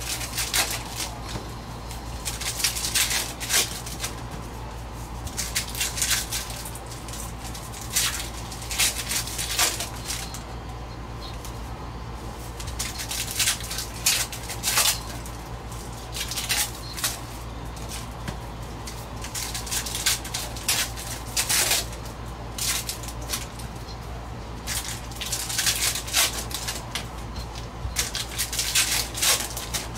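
Trading card packs being opened and the cards handled: repeated clusters of crinkling, tearing and rustling of foil wrappers and card stock, coming every few seconds, over a steady low hum.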